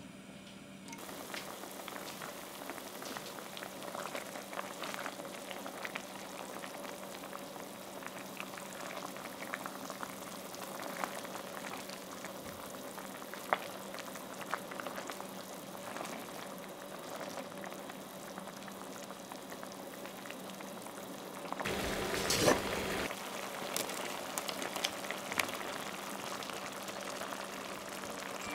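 Spaghetti boiling in wine and water in a stainless steel frying pan: steady bubbling with small pops and the odd click of a utensil against the pan. About three-quarters of the way in comes a louder burst of clatter and sizzle, followed by a few sharper clicks.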